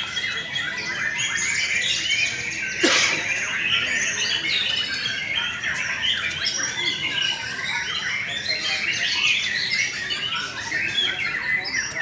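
Many caged white-rumped shamas (murai batu) singing at once: a dense, continuous tangle of overlapping quick whistled notes and glides. About three seconds in comes one sharp, loud crack.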